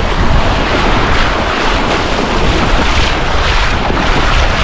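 Wind buffeting the microphone with a steady low rumble, over shallow surf washing in and around wading boots.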